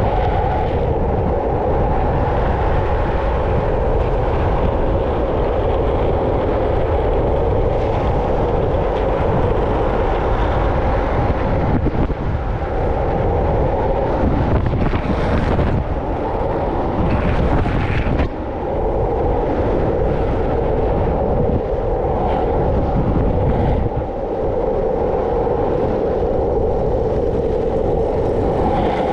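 Longboard urethane wheels rolling fast on asphalt, a steady roar that dips briefly a couple of times, with wind rumbling on the microphone.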